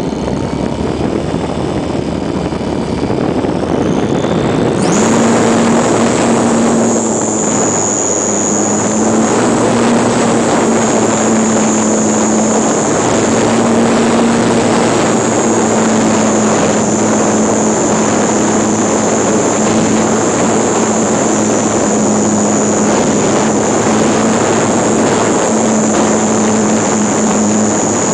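Onboard sound of a GWS Slow Stick RC plane in flight: its electric motor whines and the propeller buzzes over wind rush on the camera's microphone. The pitch rises over the first few seconds, steps up sharply about five seconds in, then holds steady.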